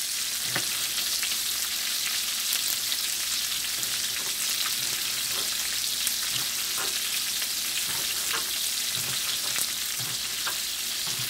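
Oxtails browning in oil in a skillet, sizzling steadily. Scattered knocks of a knife chopping peppers on a cutting board come through over the sizzle.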